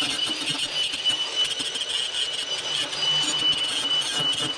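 Cordless Ridgid angle grinder with a cutoff wheel grinding along the edge of a thin sheet-metal plate: a steady high whine over a harsh grinding rasp. Near the end the wheel comes off the metal and spins freely.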